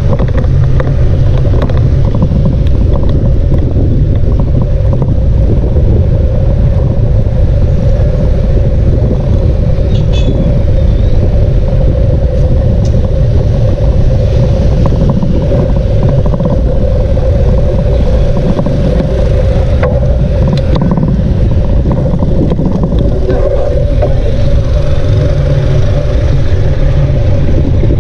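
Wind rushing over the microphone of a camera riding along on a moving bicycle: a loud, steady rumble.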